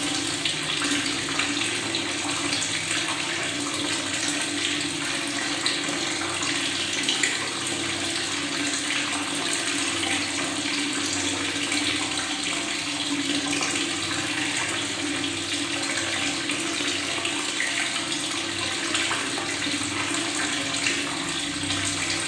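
Tap water running steadily and gurgling, with a continuous splashing hiss of bubbling water.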